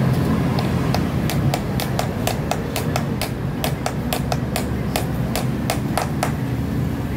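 Hammer rapidly tapping a steel bearing drift set in a Paps Pro 1 bicycle hub, sharp metallic taps at about four to five a second, working a sealed bearing during bearing replacement. The taps stop shortly before the end.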